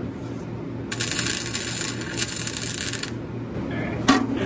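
Wire-feed welder laying a short bead on the steel exhaust pipe: the arc crackles steadily for about two seconds, starting about a second in. A low steady hum runs underneath, and a few sharp clicks come near the end.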